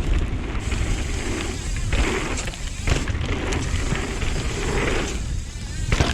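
Downhill mountain bike (2021 Nukeproof Dissent) descending a rough trail: wind rushing on the helmet-camera mic over a steady low rumble of tyres and rattling bike, with sharp knocks from hitting bumps about two, three and six seconds in.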